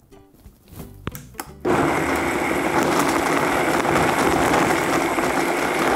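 High-powered countertop blender switched on about two seconds in and running steadily at full speed, blending a smoothie.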